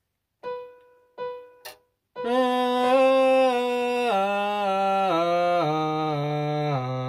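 Two keyboard notes struck at the same pitch, each dying away, then a voice singing the harmonic minor scale downward on held notes, stepping down about an octave as a vocal scale exercise.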